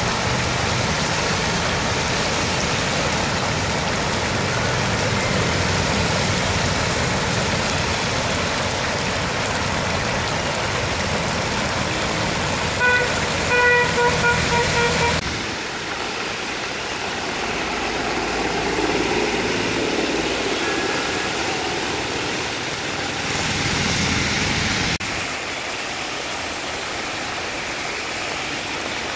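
Road traffic on a rain-wet road, with a steady hiss of tyres on the wet surface. About halfway through, a vehicle horn toots in a quick series of short beeps.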